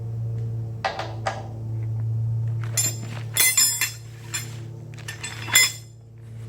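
Metal tools and parts clinking and clanking, a few sharp ringing strikes and a cluster of clinks in the middle, over a steady low hum.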